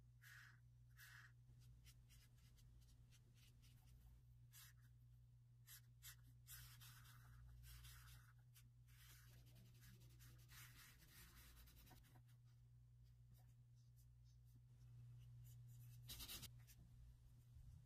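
Faint scratching of felt-tip markers colouring on paper in short irregular strokes, over a low steady electrical hum.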